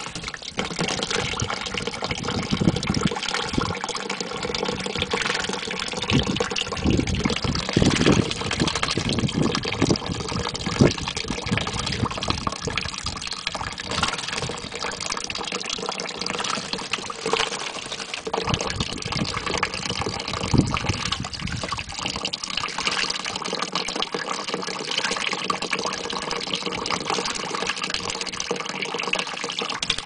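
A thin stream of water from a hose pours steadily into a plastic tub while a parakeet bathes in it, flapping its wet wings and splashing, with a louder splash now and then.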